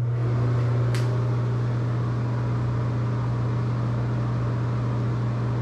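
Bathroom exhaust fan running with a steady low motor hum, with a single sharp click about a second in.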